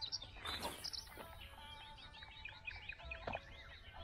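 Several songbirds singing at dawn, many overlapping chirps and whistles, with a fast run of repeated notes in the middle. A brief swish comes about half a second in, and two sharp clicks follow, about one and three seconds in.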